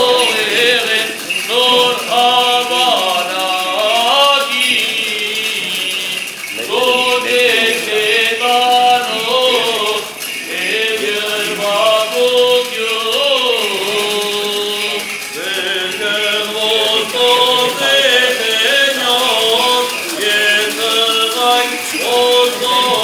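Armenian Apostolic liturgical chant: voices singing a slow, ornamented hymn in phrases, the notes held and bending, with short breaks between phrases.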